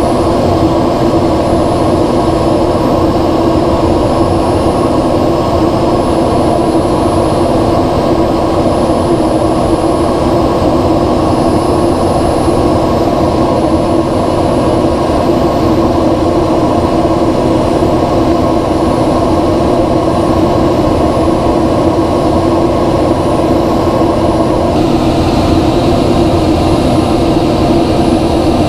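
Steady cockpit drone of the ER-2's single F118 turbofan jet engine and the airflow over the canopy, heard from inside the cockpit, with a constant low hum. Near the end the hiss turns brighter.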